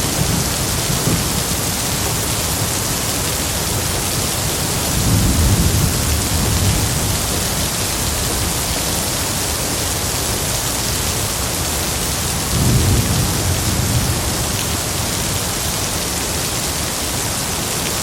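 Steady rain hiss with two low rolls of thunder, one about five seconds in and another about thirteen seconds in.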